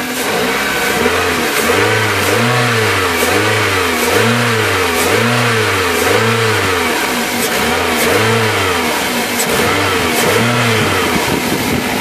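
2004 Toyota Corolla's 1.8 L 1ZZ-FE four-cylinder engine being revved again and again, about once a second, each blip rising and falling in pitch. It runs with no rod knock now that its worn connecting rod bearings have been replaced.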